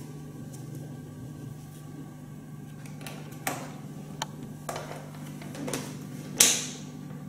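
A Tonfly TFX full-face skydiving helmet being pulled on and adjusted: a few short rubbing and knocking sounds of the shell and padding, then one sharp click near the end.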